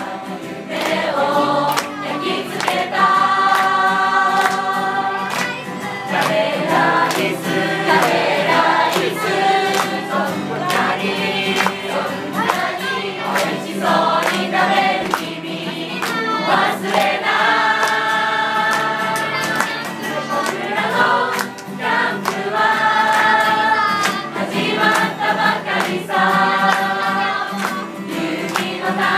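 A large group of young men and women singing a camp song together from song sheets, accompanied by a strummed acoustic guitar.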